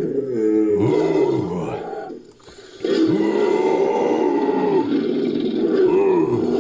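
Invented creature vocalisation made as a sound effect from a human voice layered with film-monster roars: two long calls whose pitch rises and falls, with a short break about two seconds in.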